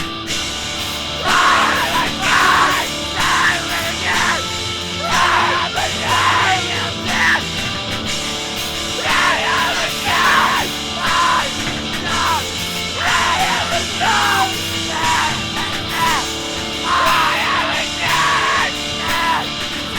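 Loud rock music with yelled, screamed vocals, short shouted phrases coming about once a second.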